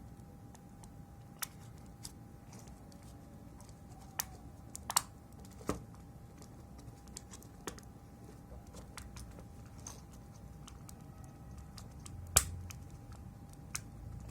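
Scattered small plastic clicks and tool taps from a PS5 controller being taken apart, its shell pried and parts removed, with two sharper snaps, one about five seconds in and one near the end. A faint steady tone runs underneath.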